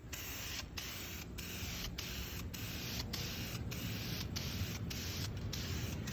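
Aerosol spray can of clear gloss polyurethane hissing as it sprays a finish coat onto a small walnut piece, broken by brief gaps about every half second.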